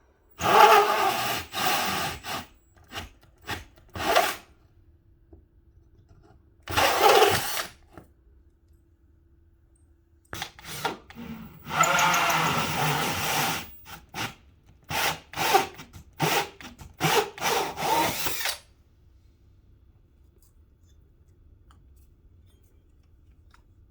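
Power drill run in repeated short bursts with pauses between them, the longest lasting about two seconds.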